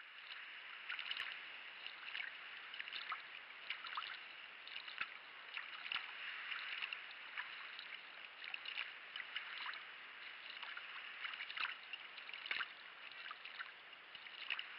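Water splashing and trickling around a sea kayak being paddled on calm sea: a steady light water noise with many small irregular splashes and drips.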